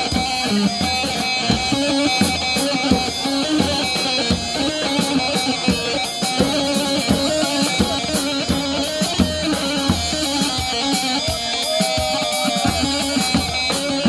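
Band dance music for a halay line dance: a melody line over a steady drum beat.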